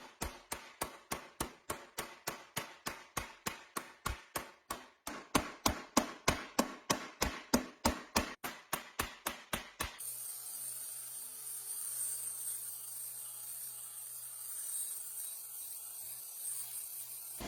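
Evenly spaced hammer strikes, about four a second, each dying away quickly. They stop suddenly about ten seconds in, and a steady hum with a thin high hiss follows.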